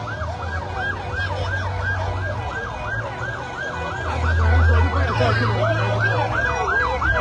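Emergency vehicle siren in a rapid yelp, its pitch sweeping up and down about three to four times a second, with more than one sweep overlapping. A low engine rumble runs beneath it and grows louder about four seconds in.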